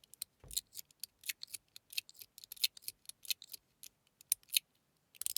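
Metal Toys Top D mechanical fidget slider being slid back and forth: irregular, rapid metallic clicks as the two balls on its track roll over the clockwork-pattern plate, with a soft thump about half a second in and a dense run of clicks near the end.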